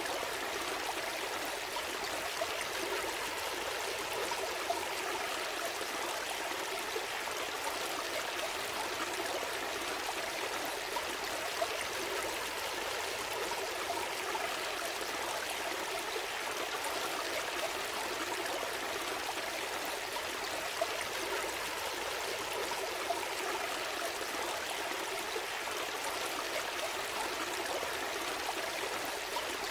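A gentle stream flowing, a steady, continuous rush of water with small splashes now and then.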